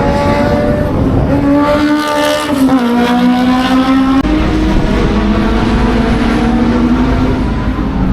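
Historic racing car engines at high revs on track, the pitch climbing as they pull through the gears, with a sharp drop about three seconds in as a car shifts or goes past.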